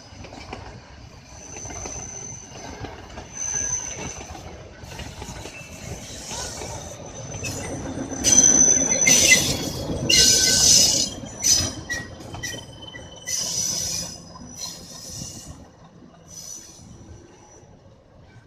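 Nilgiri Mountain Railway metre-gauge train passing close by on a curve, its wheels squealing against the rails in sharp high-pitched bursts over the running of the train. The YDM4 diesel locomotive's engine passes too. It is loudest about eight to eleven seconds in, then fades as the train moves away.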